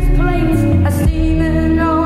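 Music: held, pitched notes that slide up into place, over a steady low bass.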